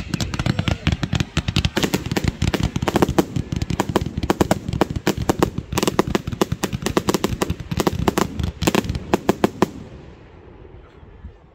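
Professional fireworks going off in a fast, dense barrage of bangs, many a second, which stops about ten seconds in and leaves a fading echo.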